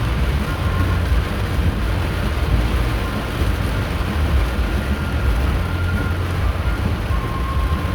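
Steady road and engine noise heard inside a moving car: a constant low rumble under an even hiss.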